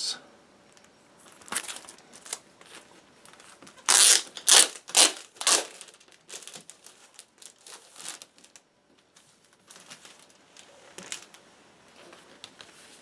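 Vinyl record jacket and sleeves rustling and sliding as an LP is handled, with four loud rustles close together about four seconds in and fainter handling noises after.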